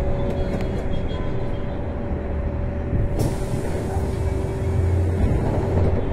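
Inside a moving trolleybus: a steady whine from the electric drive over a low road and tyre rumble, with a hiss rising about three seconds in.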